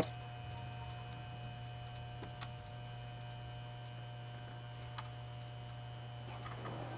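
Faint steady hum with two light clicks, one about two and a half seconds in and one about five seconds in.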